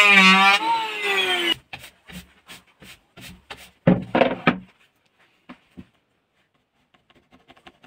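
Electric hand planer running on a wooden slab, its motor whine dipping and rising in pitch, then cutting off about a second and a half in. Then a run of quick brush strokes sweeping the wood shavings away, a louder knock about four seconds in, and faint pencil scratches near the end.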